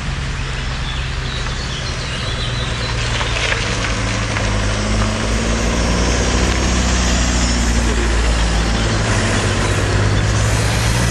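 Cars and a high-roofed Volkswagen LT van driving slowly past one after another. Their engines hum low and steady and grow louder from about halfway through as the vehicles come near.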